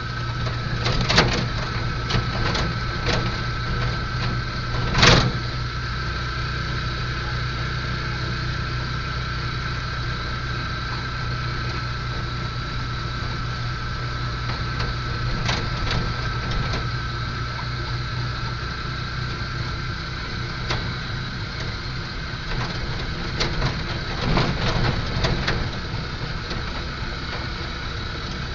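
A vehicle running steadily along the road, heard from inside the cabin, with a low engine-and-road drone and a steady thin whine. Sharp knocks or rattles come through about a second in, at about five seconds, and again in a short cluster near the end.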